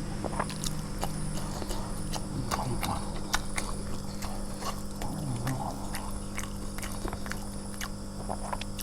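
A person chewing and eating close to the microphone: irregular wet mouth clicks and smacks over a steady low hum.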